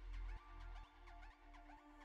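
Quiet background music with a bass beat about twice a second, fading down.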